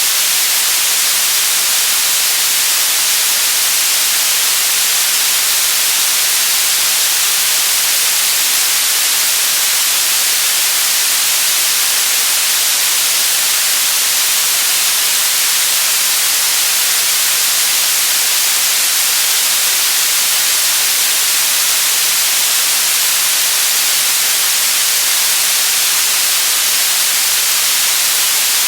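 Static noise: a steady, loud hiss, bright and high with little low end, unchanging throughout.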